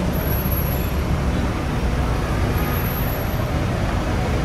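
Steady road traffic noise on a busy city street, with no single vehicle standing out.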